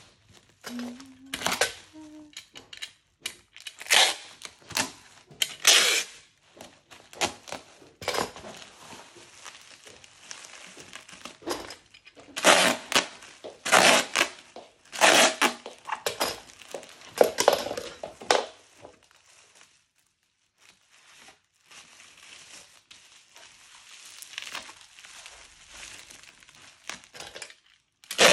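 Plastic packaging being crinkled and torn in irregular bursts, with a short lull about two-thirds of the way through.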